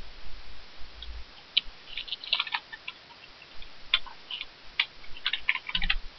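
Computer keyboard keys clicking in an irregular run of keystrokes as a word is typed, starting about a second and a half in.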